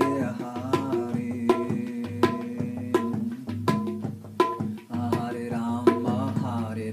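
A man chanting in a long, drawn-out sung voice over background music: a drum beat struck about every three-quarters of a second above a steady low drone. The chanting comes near the start and again near the end.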